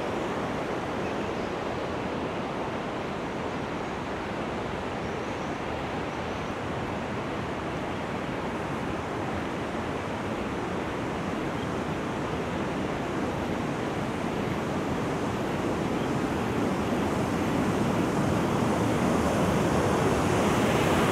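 Steady rush of river water pouring from a flood-discharge tunnel outlet and running over rapids. It grows louder over the last several seconds.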